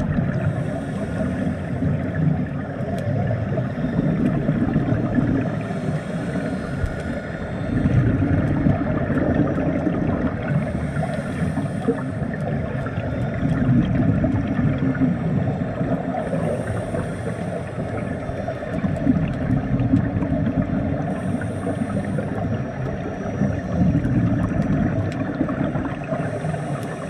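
Scuba diver breathing through a regulator underwater: a short hiss of each inhale and a burbling rush of exhaled bubbles, repeating about every five seconds.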